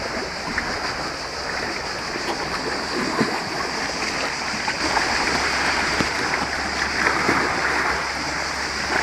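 Shallow sea water lapping and splashing among shoreline rocks close to the microphone, a steady wash broken by many small irregular splashes, growing a little louder about halfway through.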